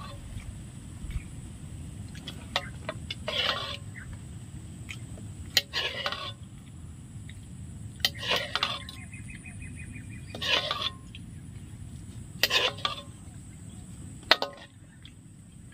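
Utensils and dishes clinking now and then as people eat a meal, with short mouth or voice sounds after the clinks, over a steady low background rumble.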